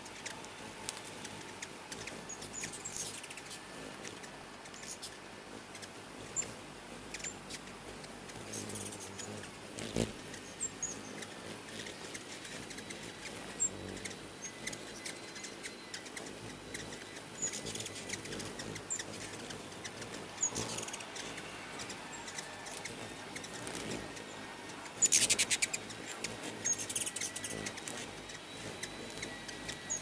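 Ruby-throated hummingbirds around busy feeders giving short, high, squeaky chips and twittering chatter, scattered throughout, with one louder burst of chatter late on.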